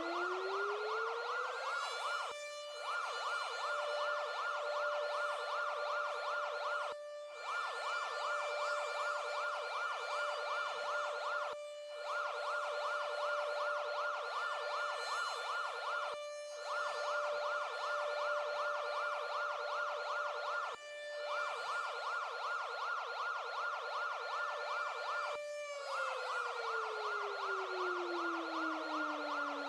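Emergency-alert siren winding up to a steady high tone, with a harsh buzzing layer that cuts out briefly about every four and a half seconds, then winding down near the end.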